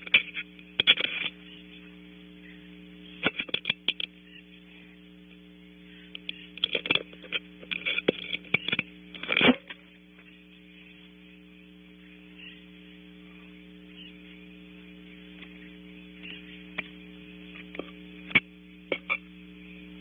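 Steady electrical hum from the owl camera's microphone, broken by clusters of short, loud, scratchy noises from the barn owlets on the branches: several at the start, a few about three seconds in, a longer run of them from about seven to nine and a half seconds in, and a few more near the end.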